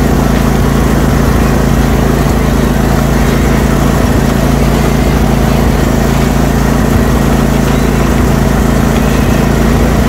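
Riding lawnmower engine running steadily at a constant pitch as the mower drives across grass.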